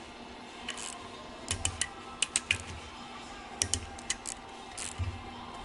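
Ratchet wrench clicking while the rocker arm assembly bolts on a Cummins ISL head are run down by hand: four short clusters of sharp clicks.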